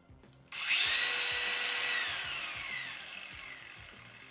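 Worx WU806.2 cordless angle grinder switched on with no load: about half a second in it spins up almost at once to a high whine, holds steady for about a second and a half, then is let off and winds down with a falling whine.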